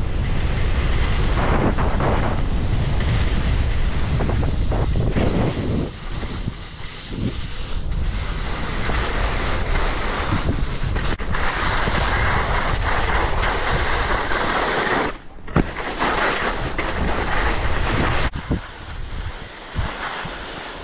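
Wind rushing over an action camera's microphone during a fast ski run, with skis hissing and scraping over spring snow. Heavy low buffeting fills the first few seconds, a sharper scraping hiss builds from about eleven to fifteen seconds in, broken by a brief drop, and the noise eases near the end.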